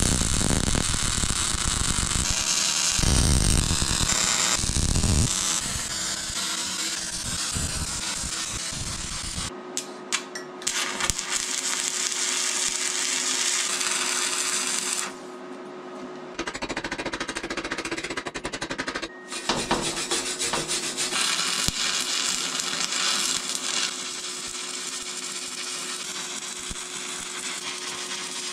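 Loud power-tool noise from metalworking on a steel mould, heard as several short clips that cut abruptly from one to the next. Later clips carry a steady motor whine under a hiss.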